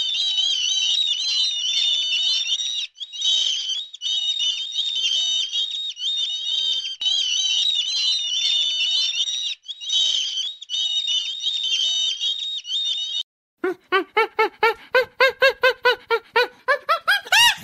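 Many small birds chirping at once, a dense high-pitched twittering with brief breaks. Near the end it cuts to a different animal's loud, rapid calls, about five a second, rising in pitch.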